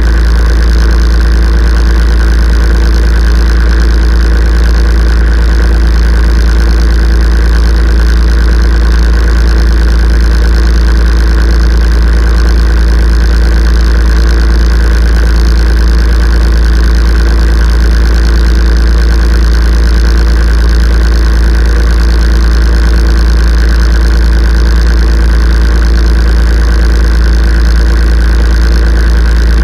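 Kubota tractor's diesel engine running steadily at idle, a loud, unchanging deep hum.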